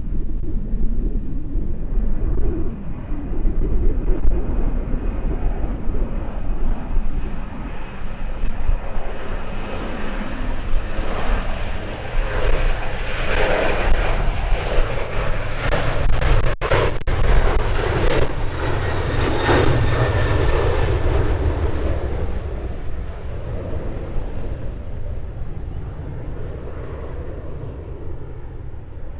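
An airliner's engines pass by, building to a loud peak about halfway through and then fading away. Wind buffets the microphone with a steady low rumble underneath.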